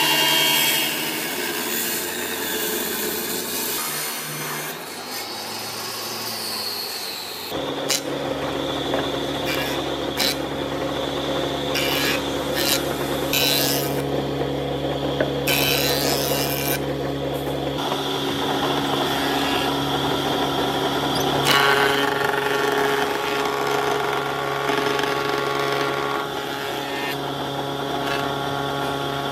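A table saw rips through a rough-sawn wooden slab. About seven seconds in the sound changes abruptly to a jointer and then a thickness planer running with a steady hum, with sharp crackles as the cutterhead takes chips off the boards being fed through.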